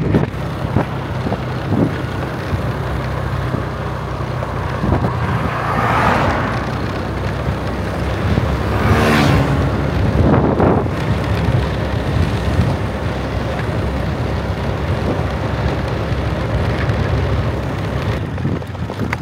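Travelling along a road: a vehicle's engine hum with wind and road noise, and other vehicles passing, loudest about six and ten seconds in.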